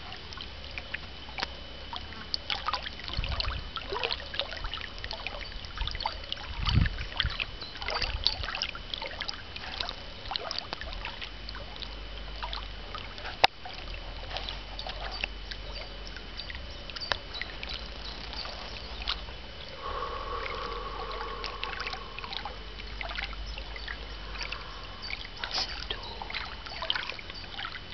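Outdoor pond-side ambience: wind rumbling on the microphone, with many short clicks and ticks and a faint steady high tone. About twenty seconds in, a pitched sound with overtones holds for about two seconds.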